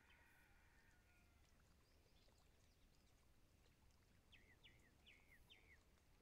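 Faint birdsong: a held, slightly falling whistle at the start, then four quick downward-sliding chirps about four and a half seconds in.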